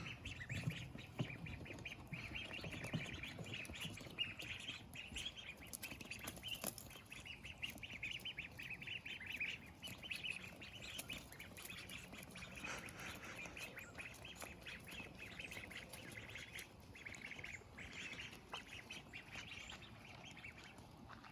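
Domestic ducklings peeping: many rapid, high-pitched cheeps overlapping one another, with a few faint clicks.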